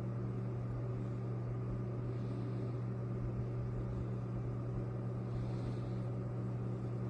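A steady low hum with a few held low tones, unchanging throughout.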